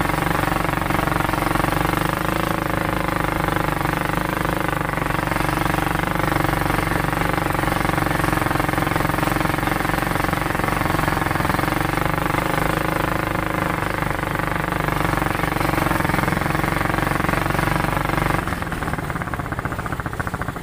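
ATV engine running at a steady speed, its note changing and dropping slightly in level about eighteen seconds in.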